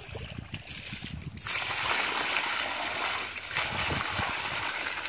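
A stream of water pours onto mud-covered fish in a net basket, splashing and rinsing them. It starts suddenly about a second and a half in and goes on steadily.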